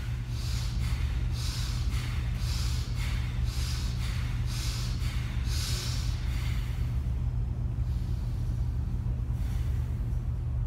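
Rapid, forceful breaths pumped through the nose by the diaphragm in Kapalbhati-style breathing, about one and a half a second, stopping about six seconds in. Under it runs the steady low hum of an air conditioner.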